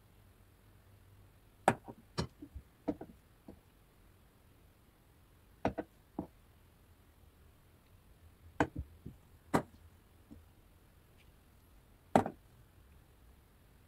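Metal spoons clinking against glass mixing bowls as cake batter is scooped and poured: about a dozen short, sharp taps at irregular intervals, some in quick pairs, over a faint low hum.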